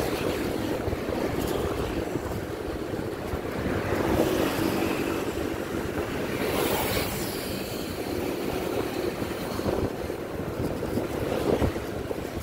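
Wind buffeting the microphone of a moving vehicle, over steady engine and road rumble from the traffic around it. About halfway through there is a louder rush as a pickup truck passes close alongside.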